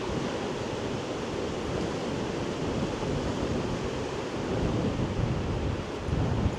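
Sea surf washing on the beach at high tide, with wind buffeting the microphone as a low, fluttering rumble; a steady wash of noise without distinct breaks.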